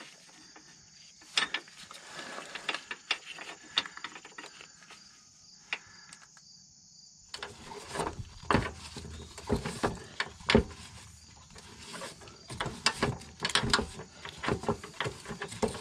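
Irregular clicks, taps and rubbing of hands-on work as a polyurethane SumoSpring helper spring is twisted by hand onto its mounting bolt under a van's frame, busier and louder in the second half.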